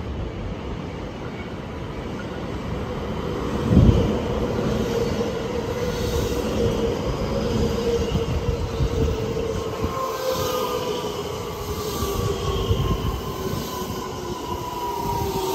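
JR West 223/225 series electric train pulling in along the platform and braking, with a steady rumble and high whines that slowly fall in pitch as it slows. A sharp thump comes about four seconds in.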